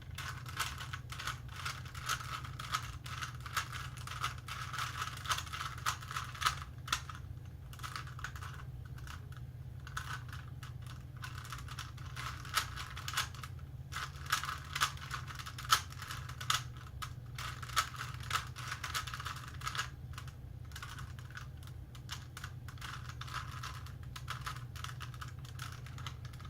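Plastic Rubik's Cube layers being twisted by hand in quick succession: a dense, irregular run of small clicks and clacks, over a steady low hum.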